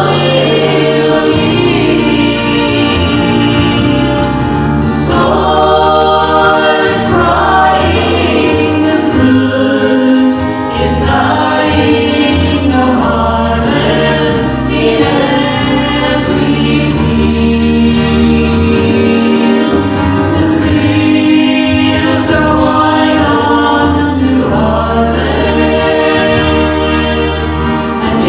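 Gospel music: several voices singing a song together in harmony, over a steady accompaniment that holds low bass notes.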